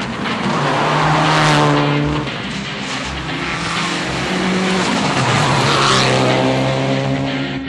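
Subaru WRX STI R4 rally car's turbocharged flat-four engine driven hard, its note rising and falling as it revs through the gears. It swells loudest twice, about a second and a half in and again about six seconds in.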